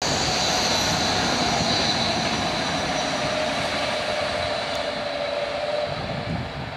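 TGV high-speed train running past at speed: a steady rushing noise with a whine that falls slowly in pitch.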